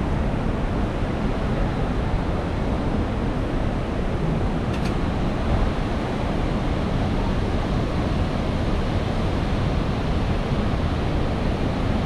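Steady rushing noise of wind buffeting the microphone over the sound of the river flowing below.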